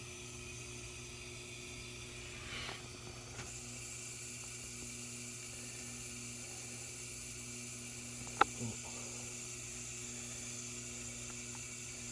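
Samsung dishwasher running a wash cycle: a steady hiss of water spraying inside over a low hum from the pump. A single sharp click about eight seconds in.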